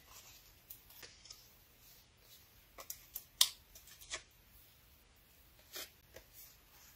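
Faint rustling and scattered small clicks from a paper die-cut sentiment handled at a craft table while 3D foam adhesive squares are pressed onto its back. The sharpest tick comes about three and a half seconds in.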